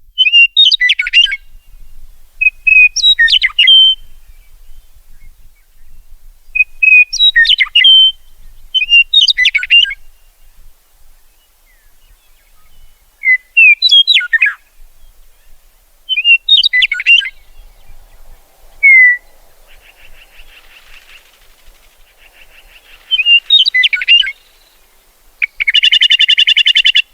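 Meadowlark singing: short, loud, fluty warbled song phrases repeated every few seconds, about eight in all. Near the end comes a harsh buzzing call.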